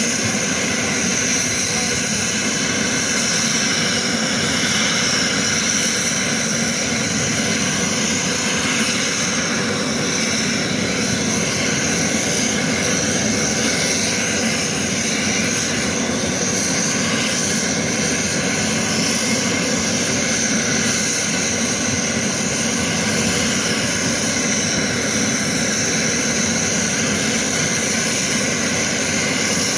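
A Fairchild Republic A-10 Warthog's General Electric TF34 turbofan engines running steadily on the ground: a constant jet rush with a high whine held at one pitch.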